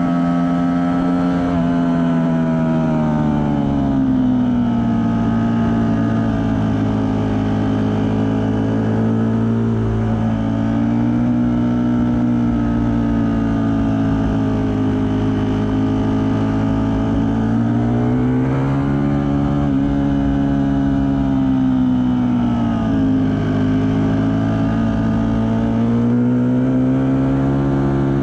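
Ducati Panigale V4 S's V4 engine at track pace, heard from on the bike, its note rising and falling repeatedly with the throttle through corners, with a quick climb in pitch about 18 seconds in. Wind rushes over the microphone underneath.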